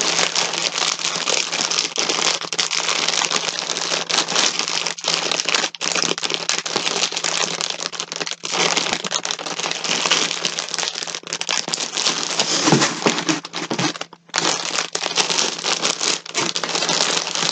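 Packaging crinkling and rustling almost without pause as skeins of yarn are pulled out and handled, dropping out briefly about fourteen seconds in.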